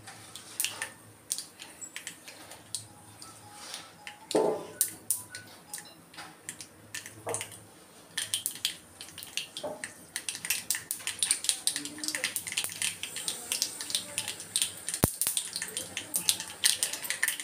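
Mustard seeds frying in hot oil in a small steel kadai, popping and crackling. Scattered pops turn to a dense, rapid crackle after about eight seconds as the seeds begin to splutter, the sign that they are fried enough for the tempering.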